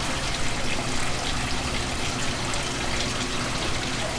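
Water running steadily from a kitchen tap, a continuous rushing with faint splashes.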